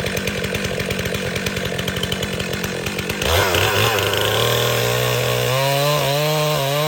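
Stihl MS400 two-stroke chainsaw idling, then throttled up about three seconds in and running at speed, its pitch wavering and slowly climbing as it works into a cut.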